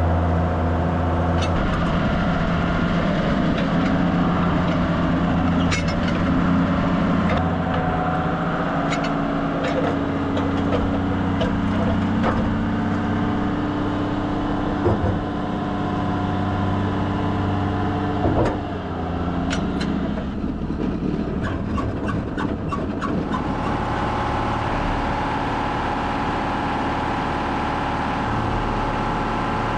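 Farm tractor's diesel engine running steadily, with scattered sharp clicks and rattles and a quick run of clicks a little past the middle.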